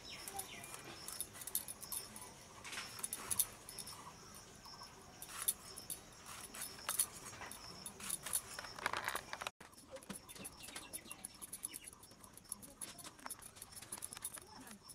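Knife chopping ridge gourd on a wooden block: sharp, irregular knocks and clicks of the blade, often several a second.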